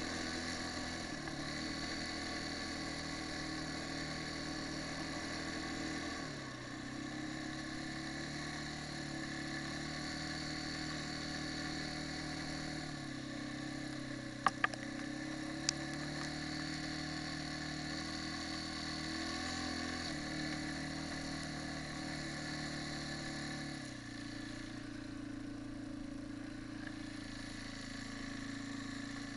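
Quad bike (ATV) engine running on the move. Its speed drops and rises a few times with the throttle, and a few sharp clicks come about halfway through.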